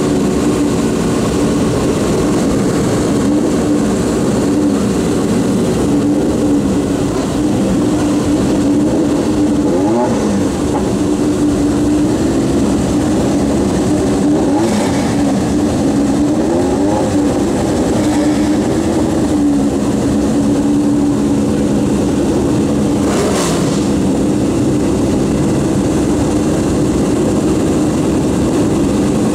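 Engines of several historic sports racing cars running together at idle, loud and steady, with throttle blips that briefly raise the pitch a few times.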